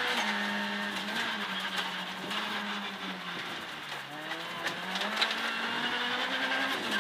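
Ford Fiesta R2 rally car's 1.6-litre four-cylinder engine running hard at high revs, heard from inside the cabin. There is an upshift just after the start, the revs sag to their lowest about four seconds in and then climb steadily, and there is another upshift near the end. Scattered sharp clicks run through it.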